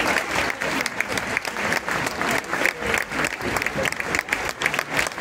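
Large theatre audience applauding: dense, steady clapping of many hands at a curtain call.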